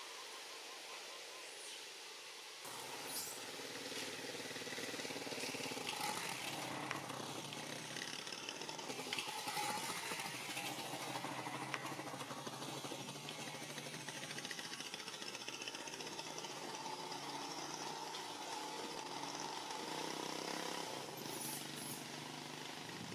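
A motor running steadily with a low hum, starting about three seconds in, over an outdoor background.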